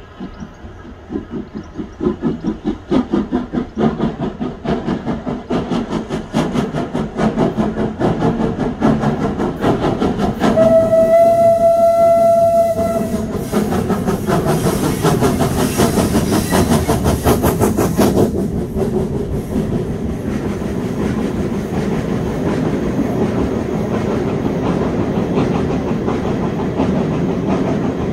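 Steam locomotive No. 131 working a passenger train, its exhaust beats coming in a steady rhythm and growing louder as it approaches. About ten seconds in it gives one long steady whistle blast. It then passes with a loud rush, and the coaches follow with a steady rumble of wheels on rail.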